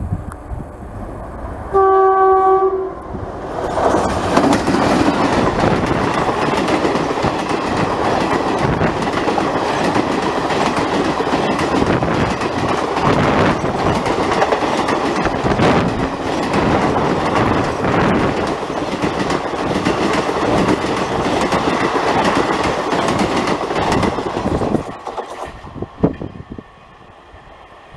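An Indian Railways electric locomotive sounds its horn once, a single short note about two seconds in. Then the express train passes close by at speed: a loud, steady rumble of wheels on rail with clickety-clack, which drops away suddenly near the end as the last coach goes by.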